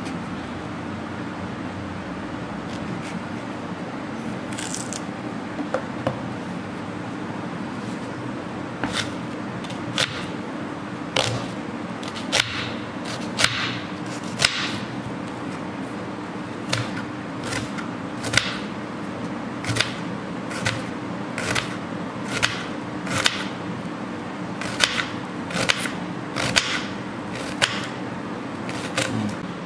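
Kitchen knife slicing and dicing a red onion on a wooden cutting board: sharp knocks of the blade striking the board, starting a few seconds in and coming roughly once a second, unevenly. A steady low hum sits underneath.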